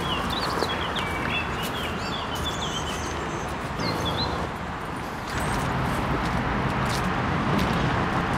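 Small songbirds chirping and twittering in quick bursts over a steady rumble of city traffic. The birdsong fades out about four seconds in, and the traffic rumble gets louder after about five seconds.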